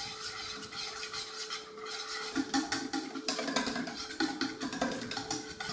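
Wire balloon whisk beating a wet batter of ground barnyard millet flour and yogurt in a plastic bowl: a fast, irregular run of clicks and scrapes as the tines strike the bowl and churn the batter.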